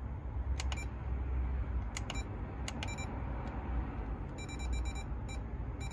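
JVC car stereo head unit giving short key-press beeps as its buttons are pressed, about a dozen, several in quick pairs and a quick run of them about four and a half seconds in, over a steady low rumble.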